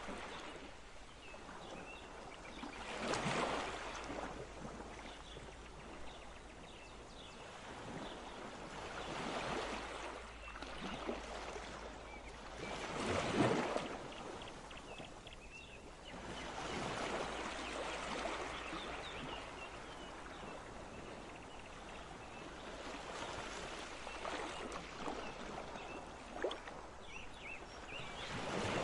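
A rushing, water-like noise that swells and fades every few seconds, with faint high chirps here and there.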